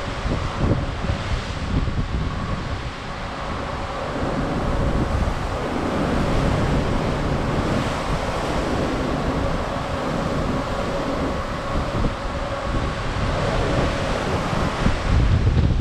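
Sea swells washing past a cruise ship under way, with wind gusting over the microphone in uneven low buffets that are heaviest near the end. A faint steady hum runs underneath.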